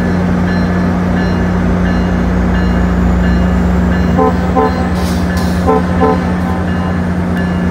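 GO Transit diesel locomotive running with a steady low drone. About four seconds in and again near six seconds, two pairs of quick short horn toots sound, with a brief hiss of air between them.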